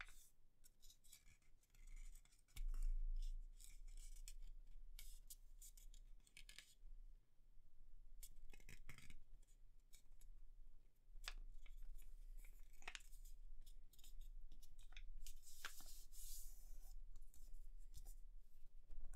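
A sheet of grid paper being folded and creased by hand: irregular rustling and short scraping swishes as fingers press and run along the fold lines.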